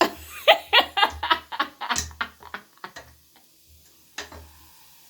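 A person laughing in a quick run of short bursts that fade out about two and a half seconds in, followed by a single click.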